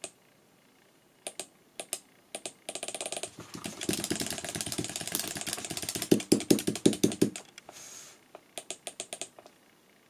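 Plastic push button on a Dahua VTO2202F-P video doorbell station being pressed over and over, making rapid clicking. It starts with a few separate clicks, builds to a dense rattling flurry in the middle, and ends with a few more clicks near the end.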